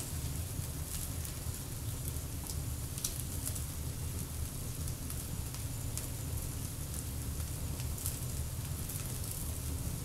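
Wood fire in an open fireplace burning pine cones, pine and holm oak, crackling with irregular sharp pops over a steady low rumble.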